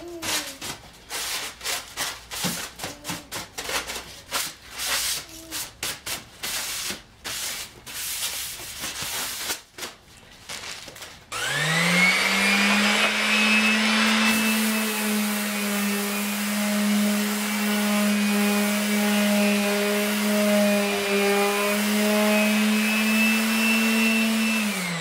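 Paper rubbed over a wooden tabletop in quick, irregular strokes, wiping off cobwebs. About eleven seconds in, an electric palm sander starts with a rising whine and runs steadily as it sands the wood with 220-grit paper. It winds down right at the end.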